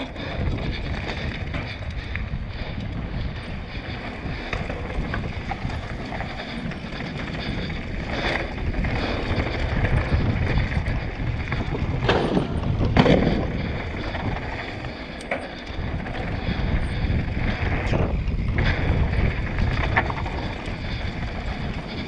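Mountain bike riding fast down a dirt forest trail, heard from a camera on the bike or rider: steady wind buffeting the microphone over tyre noise and knocks from the bike over roots and stones. About twelve seconds in it gets louder for a second or so as the tyres roll over a wooden boardwalk.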